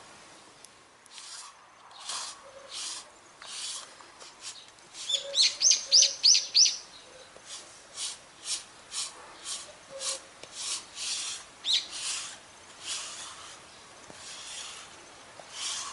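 Lint roller rolled over a Shiba Inu's fur in repeated rubbing strokes, about two a second. A bird chirps a quick run of rising notes about five seconds in.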